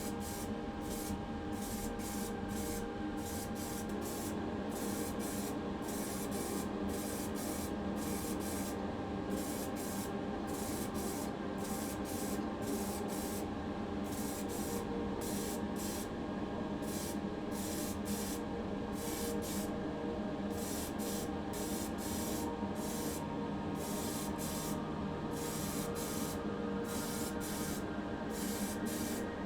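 A steady spraying hiss over an even motor hum from a workshop tool, unchanged throughout.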